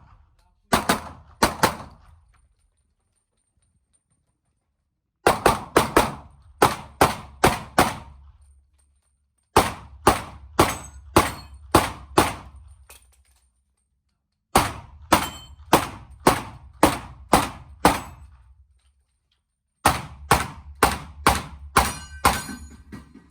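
Pistol fired in rapid strings during a timed IPSC course of fire: a short burst of about three shots, then four longer strings of seven or eight quick shots each, separated by gaps of one to three seconds where the shooter reloads or changes position. Each shot is sharp with a short echoing tail.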